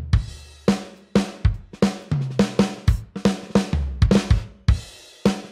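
Drum kit with kick, snare and cymbals playing a steady beat, heavily compressed in parallel through an Empirical Labs Arousor plugin (a Distressor emulation) on the drum bus, with a high-pass filter on the detector and added saturation. Deep held bass notes sound under some of the kick hits.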